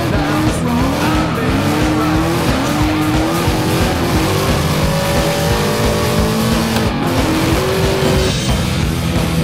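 Ford Mustang drifting: the engine's revs rise and fall as the tyres squeal and skid, over background music.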